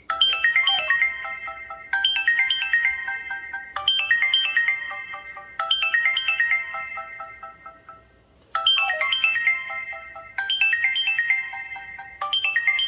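Samsung Replenish (SPH-M580) ringtone playing: a short, high-pitched melody of quick notes, repeated about every two seconds and fading within each repeat. About eight seconds in it pauses for roughly a second, then starts again.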